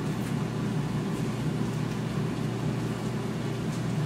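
Steady low hum of a running appliance, even throughout, with faint sizzling from mushrooms browning in butter in a frying pan.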